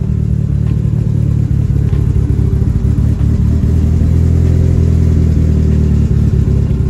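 The 4G63 turbocharged four-cylinder of an Eagle Talon TSi AWD idling steadily through its large single exhaust tip, a loud, low, even rumble. It is running on fresh oil and new spark plugs.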